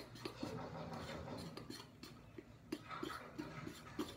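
A utensil stirring pancake batter in a bowl: faint, irregular light clicks of the utensil against the bowl, several a second, with soft wet mixing between them.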